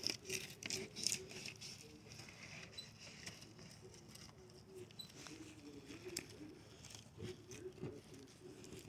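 Faint scraping and crackling of a fillet knife slicing through an unscaled redfish along the backbone, with scattered small ticks as the blade passes over scales and bone.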